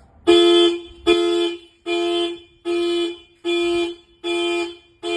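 Scion tC's factory security alarm going off, sounding the car horn in a steady series of short, loud honks, about one and a third a second. The DE 507M tilt sensor has tripped it as the car is jacked up.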